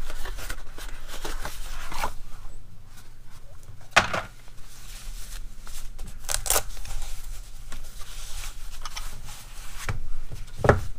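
Handling noise from a combination wrench set and its pouch being unpacked: rustling and rubbing with a few sharp knocks spaced a couple of seconds apart.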